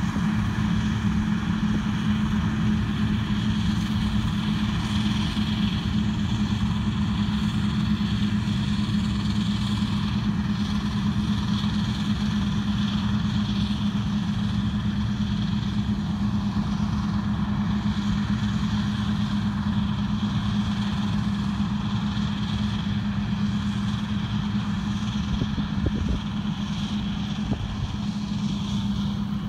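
Farm machinery engine running steadily with a constant hum.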